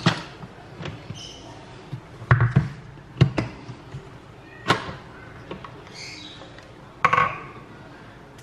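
Five or six separate knocks and clunks as the blender's stainless steel jar is lifted off its motor base and handled on the counter, with a spatula knocking against the jar. The blender itself is not running.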